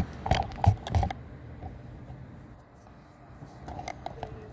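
Several sharp clicks and knocks in about the first second, then a quieter stretch with a few faint ticks near the end.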